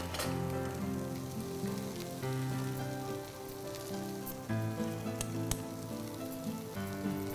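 Instrumental background music over a pan of onion and crumbled fish frying with a light sizzle. A few sharp clicks come from the wooden spatula against the pan, one about half a second in and others around four and a half and five and a half seconds.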